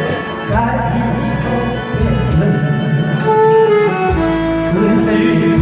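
Instrumental passage of a Korean trot song's backing track: a melody line over a steady beat and bass, with guitar and strings, and no singing.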